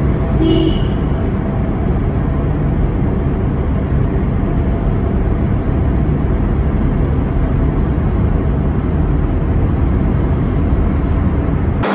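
Steady low rumble of a car driving through a road tunnel, heard from inside the cabin: engine and tyre noise with the tunnel's road roar.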